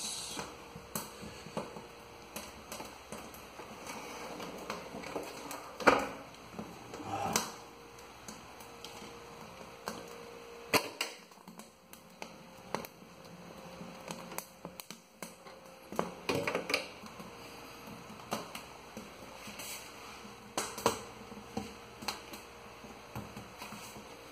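Wood fire crackling in the firebox of a wood-burning cook stove: faint, irregular clicks and pops, with a few louder knocks now and then.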